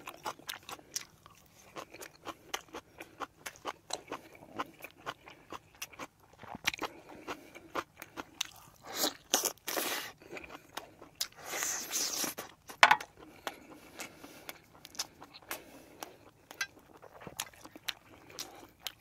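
A man chewing food, braised short ribs (galbi-jjim) and rice-cake soup, with many short mouth clicks. There are two longer rushing noises about nine and twelve seconds in, and a sharp click just before thirteen seconds.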